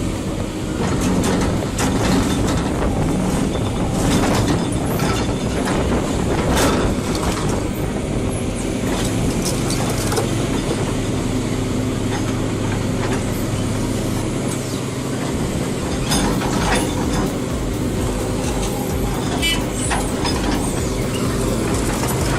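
Heavy-equipment engine running steadily, with frequent irregular metallic clanks and knocks over it.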